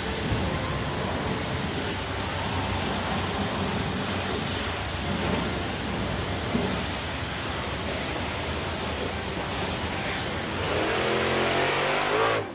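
Steady rushing hiss of a cartoon car-wash cleaning sound effect, with a rising whine near the end before it cuts off.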